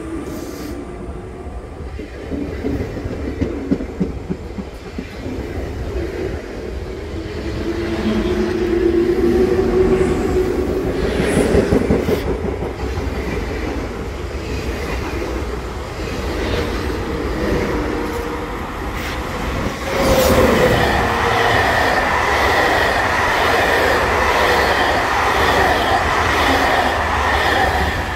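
An RER D double-deck Z2N electric train pulls out, its traction motors whining and rising in pitch as it gathers speed. About twenty seconds in, a second train runs close by on the next track, with a steady high-pitched whine over the rush of its wheels.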